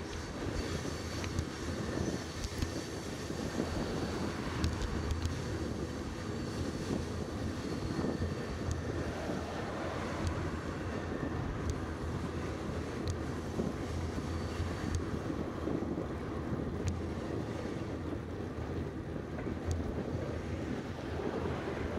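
Steady wind rush on the microphone of a camera riding on a moving road bicycle, with low road noise underneath.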